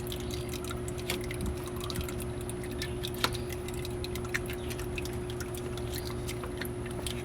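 Old engine oil dripping from the engine into a drain pan in small irregular ticks, with one sharper click about three seconds in, over a steady low hum.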